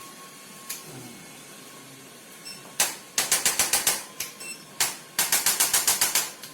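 Handheld percussive chiropractic adjusting instrument firing. A single sharp click is followed by a rapid run of clicks at about ten a second, and this happens twice in the second half. Each run delivers a series of adjusting thrusts to the patient's body.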